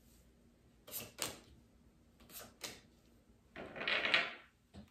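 Tarot cards being handled and laid on a wooden table: two pairs of light card clicks, then a brief papery rustle of cards about three and a half seconds in.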